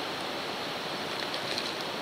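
Wood fire burning in a stove: a steady rushing noise with a few faint, scattered crackles.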